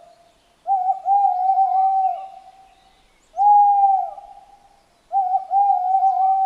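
Male tawny owl hooting. A long quavering hoot comes about a second in, then a single long hoot, then another long quavering hoot near the end: the familiar two-part territorial call of the male.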